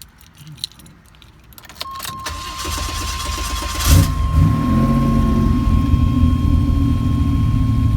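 Buick Grand National's turbocharged 3.8 V6 being cranked over, catching about four seconds in and settling into a steady idle. A steady high-pitched tone starts a couple of seconds in and sounds through the rest.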